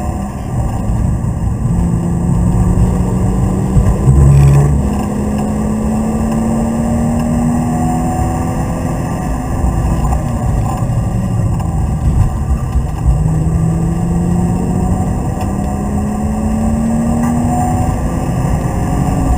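BMW Z3 2.8's straight-six engine under load, heard from inside the cabin: the revs climb steadily for several seconds, ease back, then climb again near the end. A heavy low thump sounds about four seconds in.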